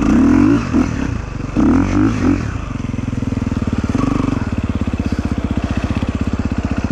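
Motorcycle engine revving in a few short blips, then settling about two and a half seconds in to a steady idle with evenly spaced firing pulses, with one brief blip of the throttle near the middle.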